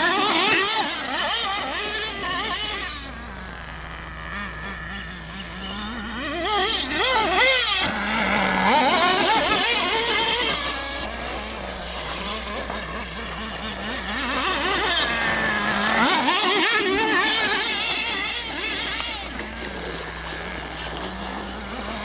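Small nitro engine of a radio-controlled off-road truck, repeatedly revving up and dropping back to a steady idle. Its pitch rises and falls several times, with the loudest stretches near the start, in the middle and a few seconds after that.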